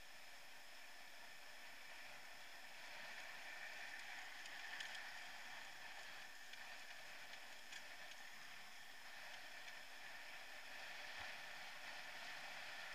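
Faint steady hiss of a mountain bike rolling along a wooden boardwalk, as picked up by an action camera, with a few light ticks.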